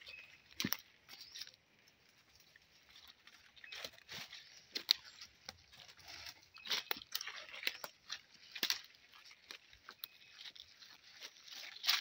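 Footsteps crunching and crackling through dry leaf litter on a forest floor, several walkers at an uneven pace, with sharp snaps now and then.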